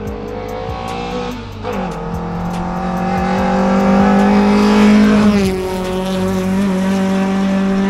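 Nissan SR20VE four-cylinder in a VW Golf Mk1 revving hard as the car accelerates past. The pitch climbs and drops sharply on upshifts, about two seconds in and again about five seconds in, and it is loudest around the second shift.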